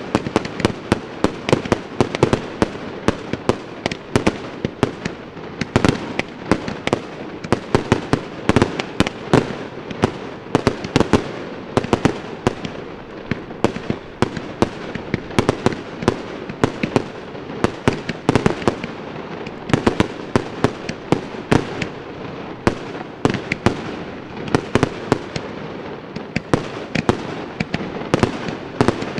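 Fireworks display: a rapid, unbroken series of sharp bangs and pops from aerial shells, several a second.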